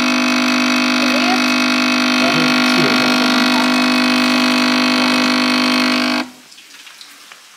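Capsule espresso machine's pump humming loudly as it brews a shot: a steady buzzing drone that cuts off suddenly about six seconds in, as the brew cycle ends.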